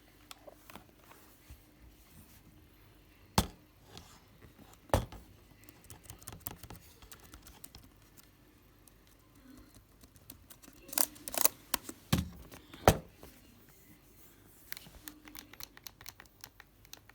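Sharp clicks and knocks with light rustling, typical of a Lenovo T440s laptop being handled and worked on by hand. Single loud clicks come about three and five seconds in, and a quick cluster of clicks follows about two-thirds of the way through.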